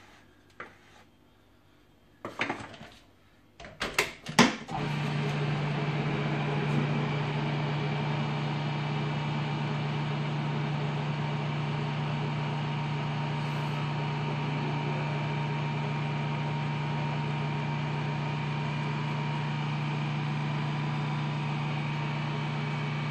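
A few knocks and clatters as the food processor's lid is fitted, then the food processor's motor starts about five seconds in. It runs with a steady hum, blending flour into a thick chocolate cookie dough.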